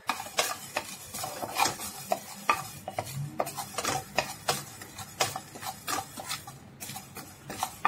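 Wooden spatula stirring and scraping dry fennel seeds, fenugreek seeds and black peppercorns around a non-stick pan as they dry-roast, with irregular clicks and scrapes.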